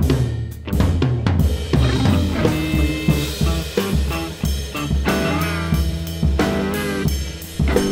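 Live improvised playing on drum kit and electric guitar: busy, irregular snare and bass drum hits and rimshots over sustained guitar notes, with high tones that slide and waver in pitch midway through.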